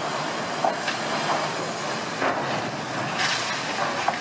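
A large ship's steel hull being run aground onto a beach at speed, scraping and grinding through sand and gravel. It makes a steady rushing, hissing noise with several louder crunches.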